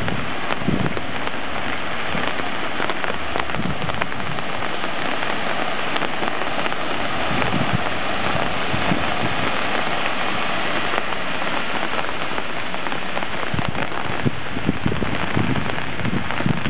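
Heavy rain pouring down during a thunderstorm, a steady loud hiss of rain on surfaces, with a few brief low buffets now and then.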